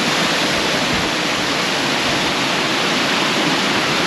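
Rain-fed waterfall rushing and splashing onto rocks, a steady, loud roar of falling water.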